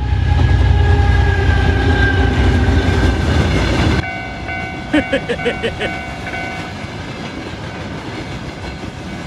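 Train sound effect: a train running by with a heavy rumble and a horn whose pitch falls slightly, cut off abruptly about four seconds in. A quieter rumbling run follows, with a pulsing ringing tone for a couple of seconds in the middle.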